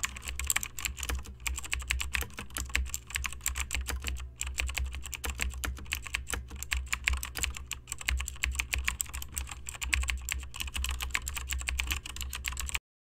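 Rapid typing on a computer keyboard: a dense, uneven run of keystroke clicks that cuts off suddenly near the end.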